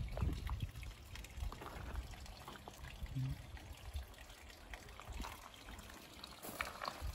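Faint trickle of running water from a garden pond, with a low rumble on the microphone in the first second.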